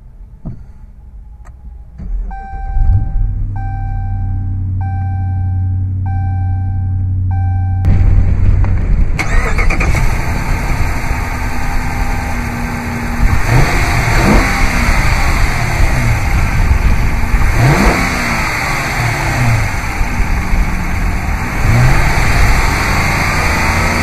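2015 Dodge Charger R/T's 5.7-litre HEMI V8 starting: it cranks and catches about two seconds in, then settles into a steady idle while a dashboard chime repeats about once a second. Then, heard close from the open engine bay, it idles and is revved three times, each rev rising and falling.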